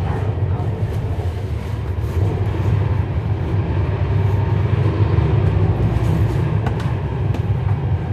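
Cummins ISL9 inline-six diesel of a NABI 40-SFW transit bus running steadily, heard inside the cabin as a low drone with road noise. A few light clicks near the end.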